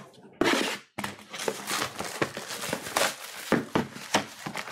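Plastic wrapping on sealed trading-card boxes being torn off and crumpled by hand: a loud rip about half a second in, then continuous irregular crinkling.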